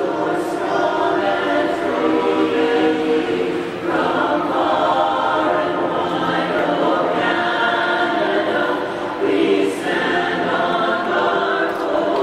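A women's chorus singing the national anthem a cappella, holding sustained chords, amplified through a stadium's public-address system.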